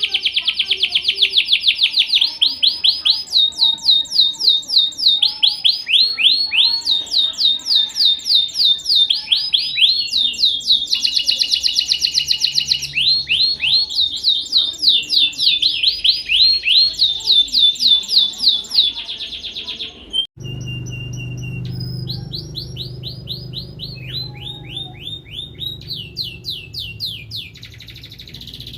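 Domestic canary singing a long song of fast rolling trills, one phrase after another at different pitches. About twenty seconds in it breaks off briefly, then goes on more softly over a low hum.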